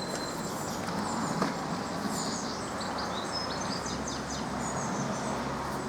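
Small birds chirping in quick short calls for a couple of seconds in the middle, over a steady outdoor background hiss, with a single faint click early on.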